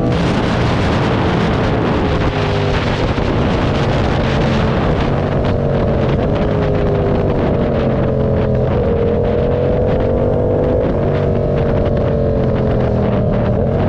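Motorcycle engine running while riding, its pitch sagging slowly and then drifting gently up and down, with wind rushing over the microphone.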